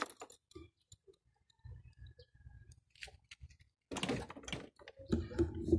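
Kymco Super 8 scooter engine starting up on fresh oil and settling into a low, fast-ticking idle. Louder bursts of sound come about four and five seconds in.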